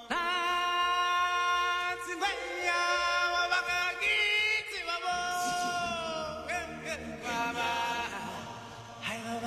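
Background music: a voice singing long held, wavering notes in a chant-like style, with no instruments.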